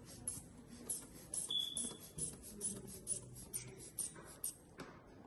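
Rubber inflation bulb of a sphygmomanometer being squeezed rapidly to pump up the blood pressure cuff: a quick run of short airy puffs and clicks, a few a second, with a brief thin squeak about a second and a half in.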